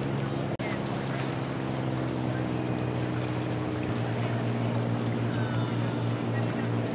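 Steady low hum of motorboat engines running on the water, over a steady hiss of wind and water. The sound drops out for an instant about half a second in.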